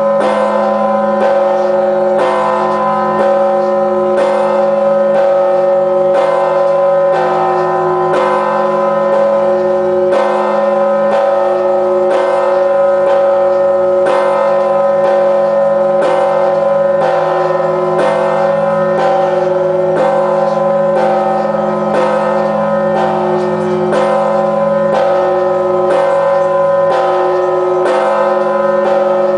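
A 7150 kg church bell struck slowly and evenly, about once a second, each stroke landing over the deep tones still ringing from the ones before.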